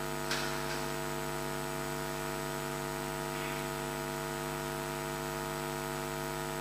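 Steady electrical mains hum with a stack of even buzzing overtones, and one faint click about a third of a second in.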